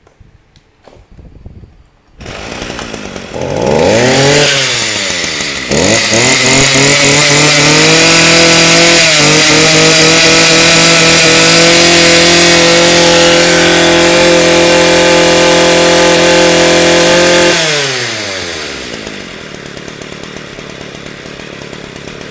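Small 24cc two-stroke brush cutter engine pull-started, catching about two seconds in, revved up twice, then held at full throttle for about ten seconds before dropping back to a steady idle. The engine revs up cleanly and smoothly on the trigger.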